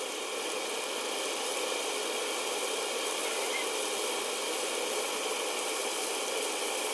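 Pork loin searing in hot oil in a nonstick skillet, sizzling steadily.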